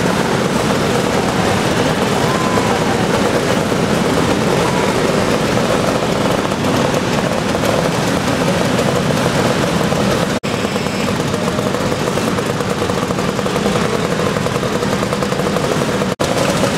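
Many motor scooter engines, a good number of them Vespas, running together in a close pack as a steady, dense drone, broken twice by a very short gap.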